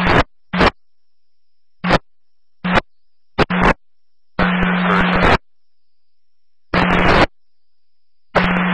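Police dispatch radio scanner putting out repeated short bursts of static as transmissions key up and drop, each burst carrying a low hum, with silent gaps between. There are about eight bursts, mostly brief; the longest lasts about a second, near the middle.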